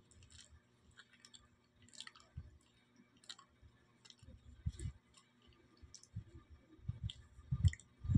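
Someone biting and chewing a ripe banana close to the microphone: scattered soft wet mouth clicks and smacks, with a few dull low thumps.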